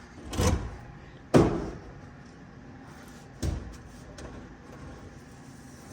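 Three heavy metal clanks from a pry bar working against a bus's steel torsion suspension parts, the second, about a second and a half in, the loudest and sharpest.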